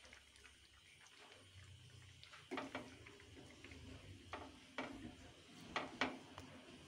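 Wooden spatula stirring a thick egg curry in a non-stick frying pan, with light knocks and scrapes of the spatula against the pan, about six of them in the second half.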